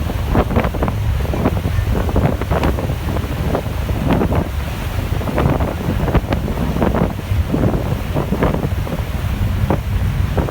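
Wind buffeting the microphone aboard a moving passenger ferry, in irregular gusts over a steady low rumble.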